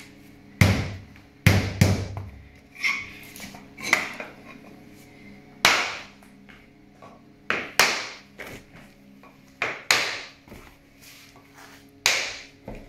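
Parquet planks being knocked into place: two heavy blows from a rubber mallet on a three-ply oak plank, then about a dozen sharper, lighter taps of a hammer on a pull bar, at uneven spacing, closing the plank's joints tight.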